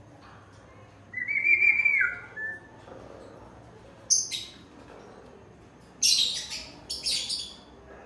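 African grey parrot calling: a held whistle that drops in pitch at its end, a short sharp high call, then two harsh screeches in quick succession near the end.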